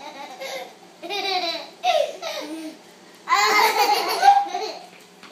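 Small children laughing in repeated bursts, the longest and loudest about three and a half seconds in.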